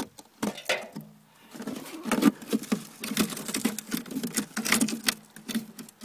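Expanded-metal mesh and wet miner's moss matting being lifted and handled in a gold rocker box, with irregular clicks, scrapes and light rattles of metal and matting.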